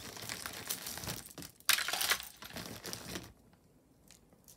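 A bag crinkling and rustling as jewelry is pulled out of it by hand, loudest about two seconds in and stopping a little after three seconds, with a couple of faint ticks after that.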